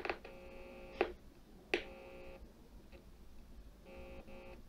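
Faint buzzy test tone from an audio signal generator, rich in harmonics, sounding for about two seconds, stopping, then returning briefly near the end; two sharp clicks about one and almost two seconds in.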